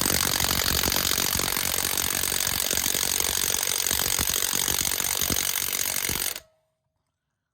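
Cordless impact wrench hammering continuously on a wheel lug nut, then cutting off suddenly about six seconds in. The nut does not break loose: the tool lacks the power to remove it.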